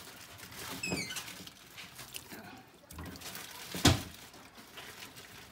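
Quiet kitchen handling sounds at a stockpot of chicken and water, with a soft thud about a second in and a single sharp knock a little before four seconds.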